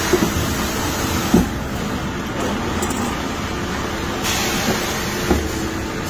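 Steady whir and hum of a food tray-sealing line running, with a few light knocks, the loudest about a second and a half in. A brighter hiss joins a little after four seconds.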